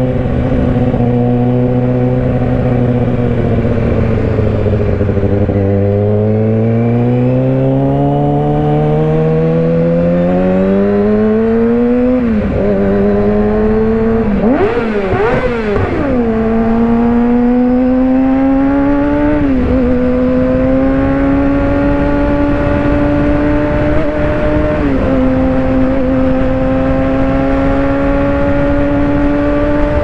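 Inline-four sport bike engine heard from the rider's seat, accelerating through the gears: its pitch climbs steadily and drops sharply at each of three upshifts, with a short stretch of quick throttle blips around the middle.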